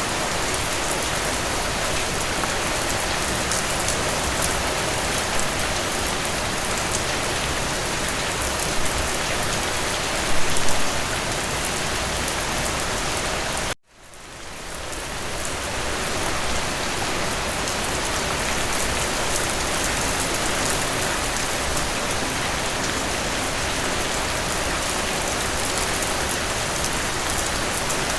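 Steady rain falling and pattering on surfaces. About halfway through, the sound cuts out abruptly and fades back in over a couple of seconds.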